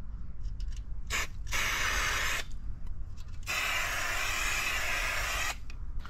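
Inverted marking-paint aerosol can hissing in two bursts as orange lines are sprayed onto the ground: a short one about a second in, then a longer one of about two seconds.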